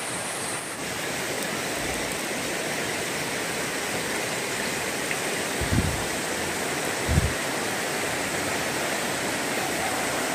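Shallow rocky river rushing, a steady noise that grows a little louder, with two low thumps about a second and a half apart past the middle.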